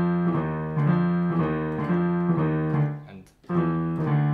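Piano with both hands playing the same low notes in octaves, below middle C, in a short–long practice rhythm as a rhythm exercise for a unison octave passage. The playing breaks off briefly about three seconds in, then starts again.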